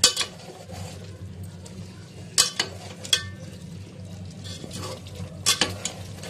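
Metal spoon stirring chicken and yogurt in a metal pot, with sharp scrapes and clinks against the pot at the start, a few around two and a half to three seconds in, and two close together near the end, over a low steady hum. The stirring is kept up after adding yogurt so it doesn't curdle.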